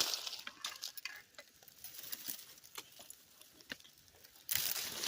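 Rustling of brush, brambles and dry leaf litter with scattered snaps and crackles as someone pushes through undergrowth on foot, with a louder burst of rustling near the end.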